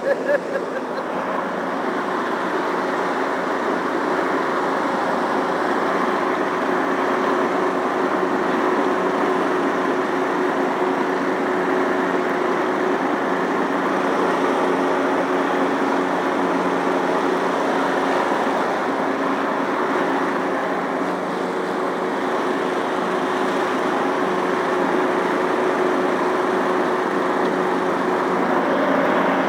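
Lawn tractor engine running steadily under load while mowing, with the mower deck's blades cutting grass; an even, unbroken drone.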